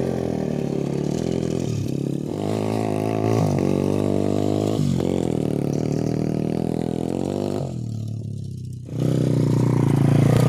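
Motocross bike engine revving, its pitch climbing and breaking off several times as the rider accelerates and shifts. It drops back briefly about eight seconds in, then opens up louder.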